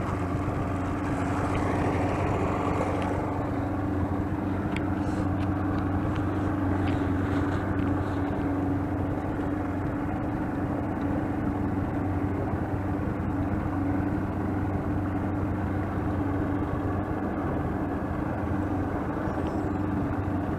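Boat motor running at a steady, unchanging speed as the boat travels across the water.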